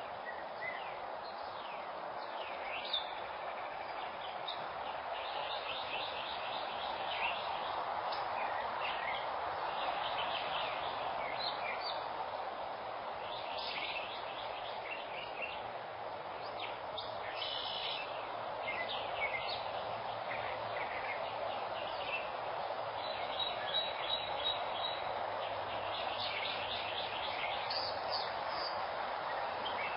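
Outdoor evening ambience: several birds chirping and calling on and off, some in quick trills of repeated notes, over a steady background hiss.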